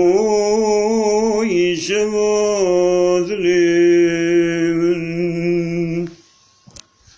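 A man singing solo, holding long drawn-out notes with short wavering ornaments between them. The singing stops abruptly about six seconds in, followed by a few faint clicks.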